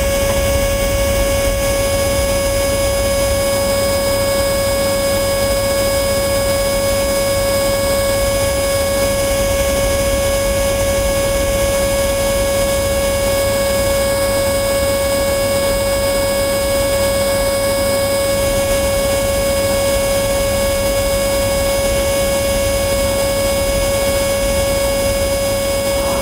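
Canister vacuum cleaner running steadily: a constant motor whine over a hiss of rushing air.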